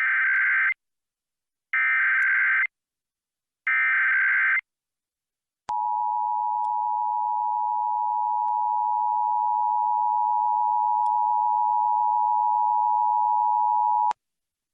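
Emergency Alert System broadcast: three short bursts of warbling SAME digital header tones, each just under a second, coding a Blue Alert from civil authorities. Then comes the steady two-tone EAS attention signal, held for about eight seconds and cut off abruptly, the cue that the spoken alert message follows.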